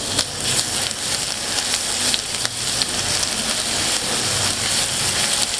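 Chopped onion and freshly added garlic sizzling in hot oil in a kadai while being stirred with a silicone spatula: a steady frying hiss. The onions are being sautéed soft rather than browned.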